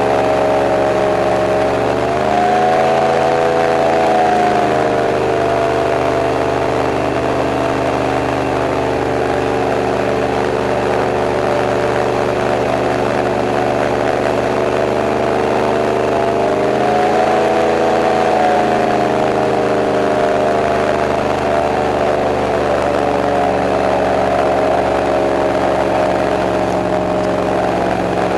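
Airboat engine and propeller running under way, a loud, steady drone. Its pitch swells up about two seconds in and again at about seventeen seconds as the throttle is opened, then settles.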